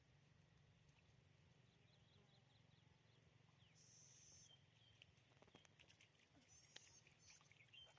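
Near silence with faint, small animal chirps: a series of short chirps, a brief high steady trill a little before halfway, and a few faint clicks in the second half.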